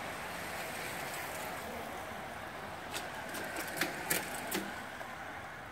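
A bicycle race pack riding away: a steady hiss of tyres and wheels that fades toward the end, with a handful of sharp clicks a little past the middle.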